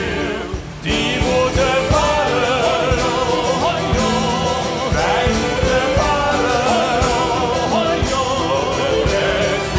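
Singers performing a song from a children's opera over a band with a drum kit and a regular beat. The music drops briefly just after the start, then comes back in full.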